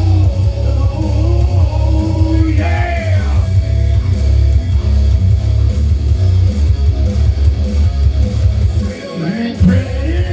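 Heavy rock music: an instrumental passage with a guitar melody over a heavy, steady low end, which drops out briefly about nine seconds in.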